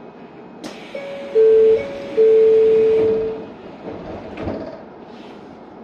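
Two loud electronic beeps on one steady pitch, a short one and then a longer one of about a second, with a fainter higher tone sounding alongside, heard inside a train cab while the train stands at a station. A click comes just before the beeps and a thump about four and a half seconds in.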